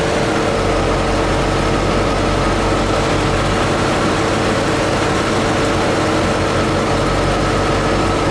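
Chevrolet C4 Corvette V8 idling steadily in reverse gear with a cylinder misfiring.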